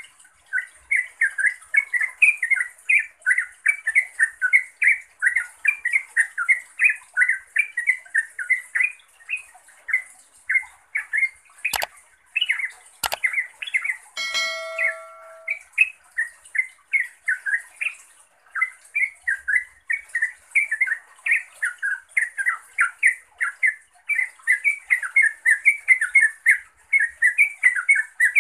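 Yellow-vented bulbul (trucukan) calling in a fast, continuous run of short bubbly chirps, the call used to lure or rouse rival bulbuls. About halfway through come two sharp clicks, then a brief chime.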